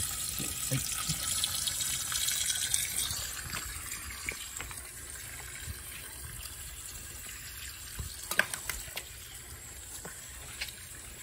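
Water sloshing and running in a shallow plastic tub as a gloved hand rinses a gill-cut tilapia to bleed it. The water is louder in the first few seconds and softer after, with a few sharp knocks about eight seconds in.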